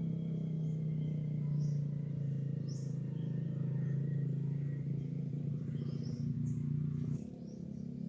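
Short, high chirps from small birds, scattered over a loud, steady low drone that drops in level about seven seconds in.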